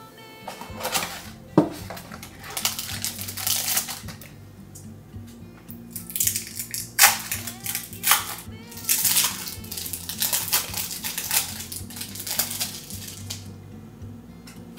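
Plastic wrappers on individually wrapped cheese slices crinkling as they are handled and peeled off, in an irregular string of crackly rustles, with a sharp click about one and a half seconds in. Soft background music plays underneath.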